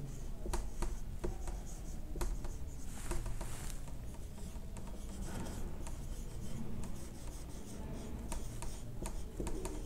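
Marker pen rubbing and scratching across a whiteboard in short writing strokes, with small taps as the tip touches down.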